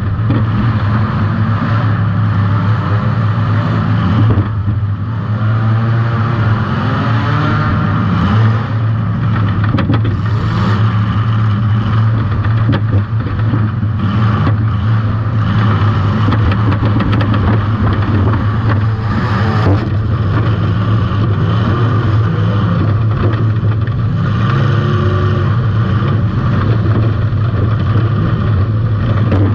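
Compact demolition derby car's engine running loud, revving up and down, with a few sharp crunching impacts about 4, 10 and 19 seconds in.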